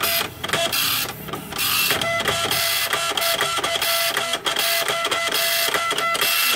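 Epson LX-300+ dot-matrix printer running: a rapid, loud mechanical buzzing of the print head and carriage with steady whining tones. It comes in short stretches at first, then runs continuously from about a second and a half in and cuts off abruptly near the end. The print head is jamming and stopping at the right side.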